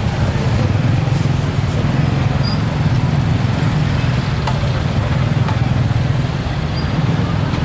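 Steady rumble of motorbike and road traffic in a busy market street, with faint scattered voices and a few small clicks.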